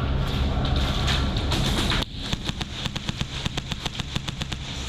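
HPA airsoft guns firing, a fast run of sharp pops starting about two seconds in, over a steady low rumble.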